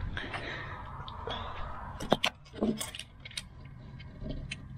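Small metal parts clinking and jingling as they are handled, with a few sharp clicks, the loudest about two seconds in.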